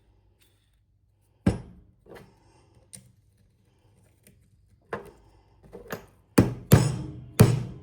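Knocks and clunks of angle-grinder parts being handled and tapped during repair: a few scattered ones, then several louder ones close together near the end.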